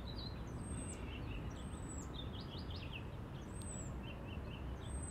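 Small birds chirping repeatedly, with high arched whistled notes about once a second and quick runs of short chirps between, over a steady low outdoor background rumble.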